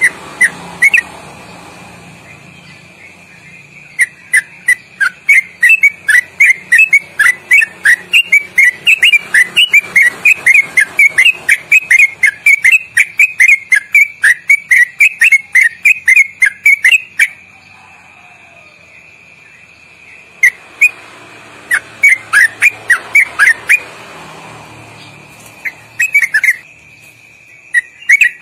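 Yellow-vented bulbul singing its 'ropelan': a long, loud, rapid run of sharp whistled notes, about four a second, with slight quick twists in pitch. The run breaks off a little past the middle and resumes in shorter bursts. A steady high tone sounds underneath.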